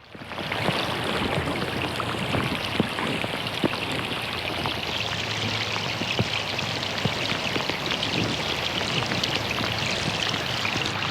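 Rain falling on a pond: a dense, steady patter of drops striking the water, with a few louder single drops standing out. It fades in over the first second.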